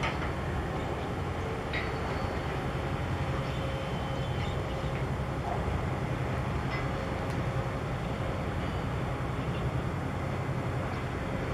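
Steady low throbbing rumble of a container ship's diesel engine as the ship passes close by, with a few faint short high chirps over it.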